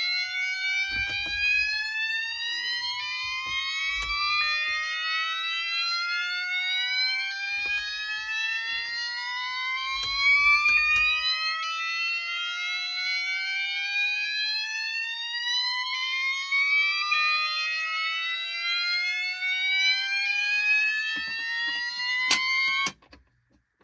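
Fire alarm devices, among them a Gentex GOS multi-tone alarm, sounding the slow whoop tone: repeated rising sweeps from two devices looping out of step with each other. A sharp click near the end, and then the alarms cut off suddenly.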